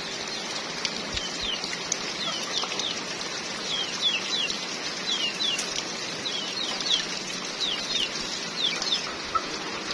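Steady rain falling, with many short, high, falling peeps from birds, often in pairs, scattered throughout.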